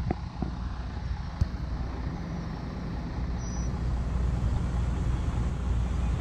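Road traffic: a steady low rumble of passing vehicles that grows a little louder in the second half.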